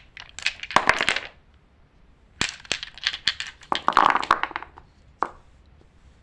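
Crinkling and sharp clicking of something being handled, in two bursts: about a second in, and again from about two and a half to four and a half seconds in, with one more click near five seconds.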